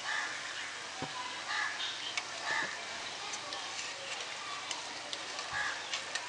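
Gujiyas deep-frying in hot ghee: a steady sizzle with scattered small pops and clicks as a wire skimmer turns them in the pan.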